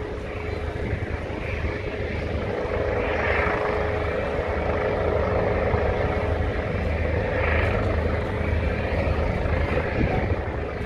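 Helicopter hovering, its rotor beating steadily under a steady engine whine, swelling slightly louder through the middle.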